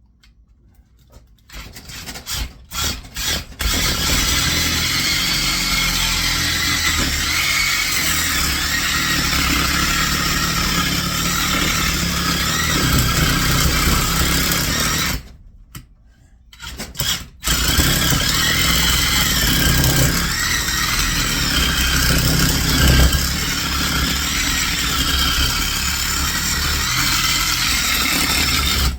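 Electric reciprocating saw (Sawzall) cutting into a metal motor housing, with a dull blade. It starts with a few short trigger pulls, runs steadily, stops about halfway, gives two short bursts, then runs steadily again.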